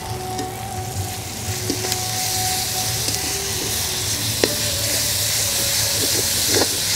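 Onion-tomato masala sizzling in oil in a metal kadai as ginger-garlic paste is added and stirred in with a perforated metal ladle. The sizzle grows a little louder, with a couple of sharp clicks of the ladle against the pan.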